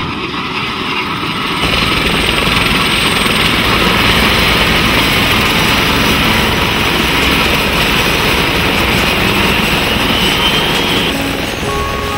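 Turbine helicopter running on the ground: a loud, steady rush of engine and rotor noise that grows louder about two seconds in, with a turbine whine rising in pitch toward the end.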